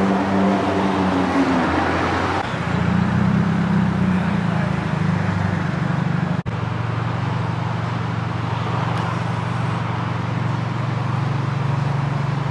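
City street traffic noise with a steady low engine drone from a nearby motor vehicle.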